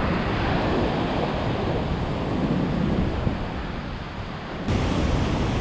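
Ocean surf breaking, with strong wind buffeting the microphone; the noise steps up suddenly a little before the end.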